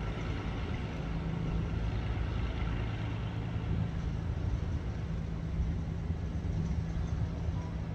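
A steady low engine hum with an even rushing noise over it.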